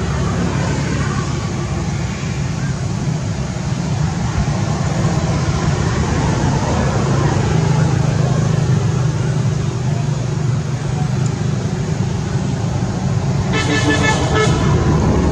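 Steady low rumble of road traffic and vehicle engines. Near the end comes a short, high-pitched tone, about a second long, that breaks off twice.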